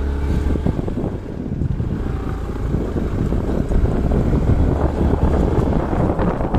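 Motorcycle riding along a rough road, its engine running under heavy wind buffeting on the microphone.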